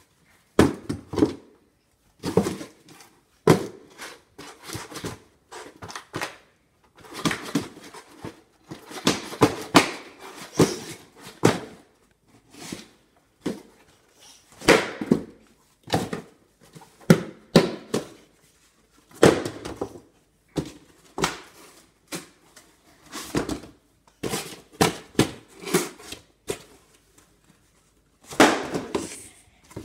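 A small cardboard shipping box being smashed, slammed down over and over: a long run of loud, irregular thuds, sometimes several a second, with short pauses between bouts.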